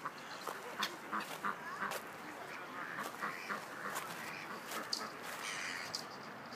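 Ducks quacking in short, repeated calls, with scattered sharp clicks.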